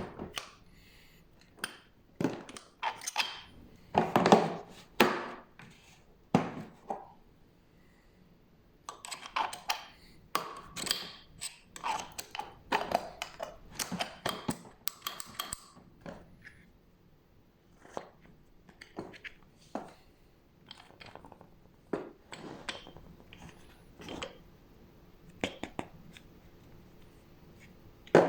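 Irregular clicks, knocks and light clattering of hard objects being handled, in clusters with short pauses between, with no motor running.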